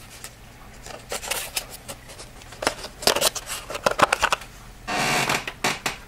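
A small cardboard SSD box handled in the fingers and set aside: bunches of scratchy clicks and scrapes, then a short sliding rustle near the end.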